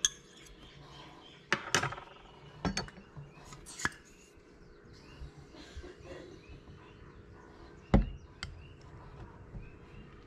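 A few sharp clinks and knocks of metal against glass and aluminum as a metal stirrer and a hand injector are worked in a glass cup of melted plastisol and set on an aluminum lure mold. The loudest knock comes about eight seconds in.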